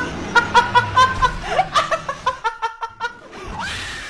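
A young woman laughing hard in quick repeated bursts, then near the end a drawn-out, high-pitched voice sound like a wailing cry.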